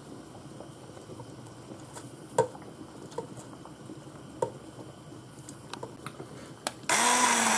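Faint clicks and rustles of grated cheese being dropped by hand into a plastic blender beaker. Near the end an immersion (stick) blender switches on suddenly and runs loudly, chopping basil, garlic, pine nuts and cheese into pesto.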